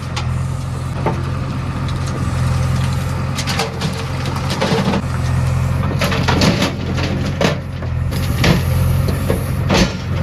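Diesel engine of a backhoe loader running steadily at work, with irregular knocks and clatters as the bucket digs and dumps mud.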